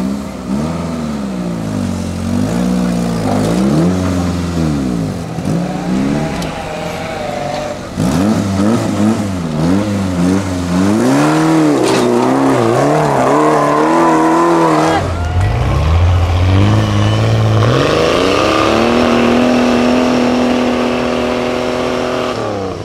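Engines of modified off-road trial jeeps revving up and down repeatedly under load on a steep dirt climb. In the last few seconds the revs hold high and steady, then fall away.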